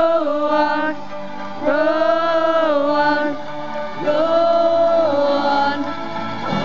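A pop song with voices holding long sung notes, in three phrases each about a second and a half long with short breaks between.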